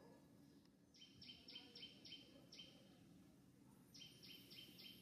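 A bird calling faintly in two runs of quick, evenly repeated high notes, five or six notes to a run: the first about a second in, the second near the end.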